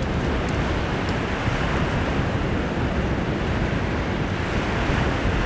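Surf washing and breaking on the beach, with wind buffeting the microphone in a steady low rumble.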